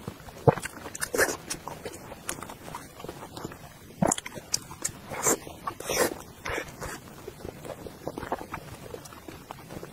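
Close-miked eating sounds: irregular smacks, clicks and chewing as a slab of red-braised pork is bitten and chewed, with a sharper bite about four seconds in.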